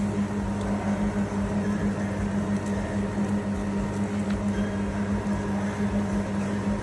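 Steady low machine hum: a constant drone with an even background noise that does not change.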